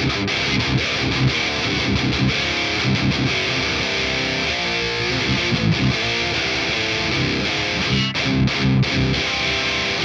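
Electric guitar playing high-gain riffs with low, tight chugging, through a Boss OD-200 Hybrid Drive pedal boosting an already distorted amp. The pedal's metal distortion mode is stacked in, giving a chainsaw-like edge.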